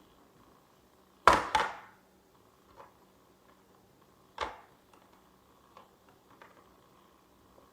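Small plastic toy pieces knocking and clacking against a plastic Hatchimals playset as they are set in place: two sharp knocks about a second in, another near the middle, and a few faint clicks between.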